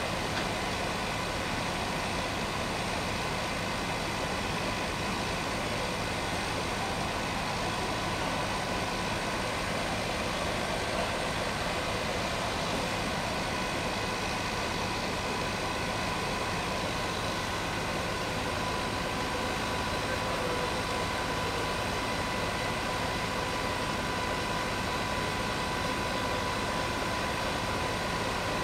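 Fire trucks' engines running steadily: a constant, even drone with a faint steady whine over it.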